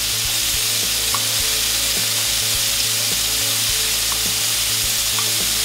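Venison strips with peppers, garlic and onion frying in a little oil in a pan: a steady, even sizzle.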